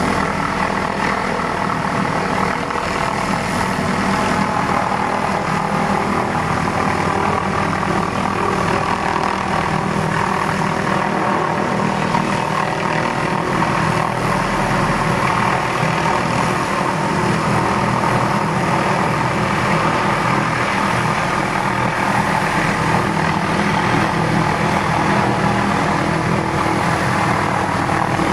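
Hughes 500D helicopter's turbine engine and rotors running steadily, a dense drone of many tones that holds level throughout.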